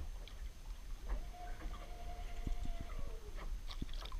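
Fishing reel being wound in on a hooked fish: a steady whine from about a second in to past the middle, with a run of sharp clicks near the end, over low wind rumble on the microphone.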